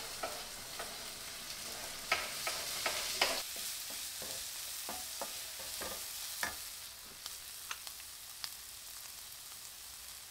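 Chopped onions and hot pepper sizzling in a stainless steel skillet, with a wooden spatula stirring and tapping against the pan in short, irregular clicks and scrapes.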